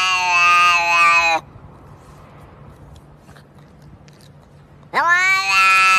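A domestic cat's long, drawn-out meow ends about a second and a half in; after a quiet pause, another long meow begins about five seconds in, rising and then sliding down in pitch.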